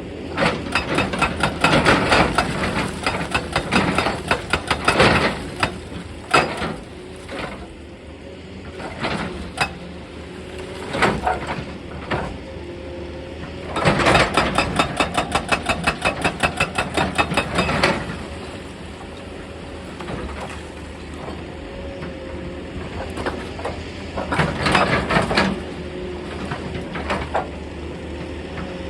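Excavator breaking rock: the engine runs steadily under repeated sharp strikes and clatter of steel on stone. These come in bursts, the longest a rapid run of about six strikes a second about halfway through.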